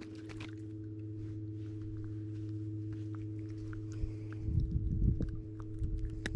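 A steady low hum with a few faint clicks; from about four seconds in, low rumbling bumps and knocks.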